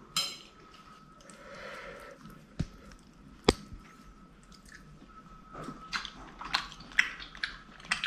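Chopsticks clicking against a china plate and bowls during a meal, with soft eating sounds. There are a few separate sharp clicks, the loudest about three and a half seconds in, and a quicker run of small clicks near the end.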